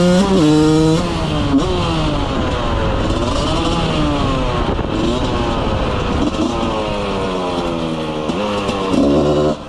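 Husqvarna 125 two-stroke single-cylinder motorcycle engine revving hard. It is loud at first, then its pitch repeatedly climbs and drops as it revs up and comes off the throttle or shifts. It gets loud again just before the end, then drops off suddenly.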